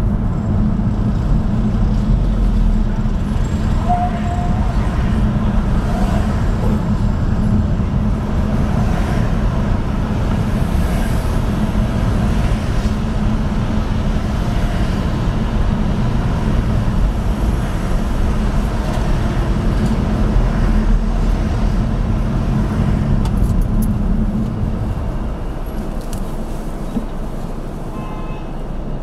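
Steady engine and tyre noise of a car being driven in town traffic, heard from inside the car. It gets quieter about 25 seconds in as the car slows to a stop at a pedestrian crossing.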